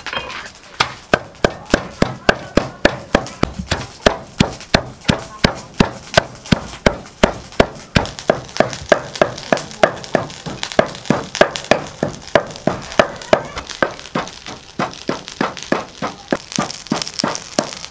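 Wooden pestle pounding sliced lemongrass and herbs in a deep wooden mortar: a steady run of knocks, about three strokes a second.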